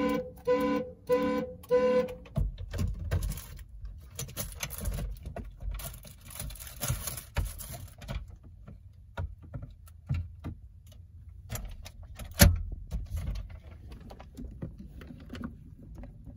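2001 Ford Expedition's alarm sounding the horn in short pulses about twice a second, stopping about two seconds in. Then keys rattling and clicks, with one sharp thump about twelve seconds in.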